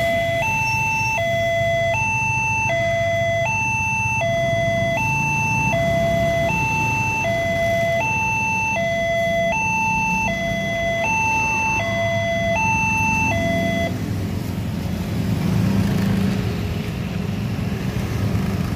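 Newly installed level-crossing warning alarm sounding a two-tone electronic chime that alternates between a high and a low note, each held under a second, and stops about 14 seconds in. Motorcycle and car engines rumble underneath and grow a little louder as traffic crosses the tracks near the end.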